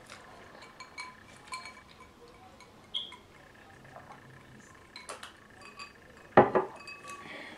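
A drinking glass set down on a wooden table with a sharp knock and a brief ring about six and a half seconds in. Small clicks and clinks of eating and drinking come before it.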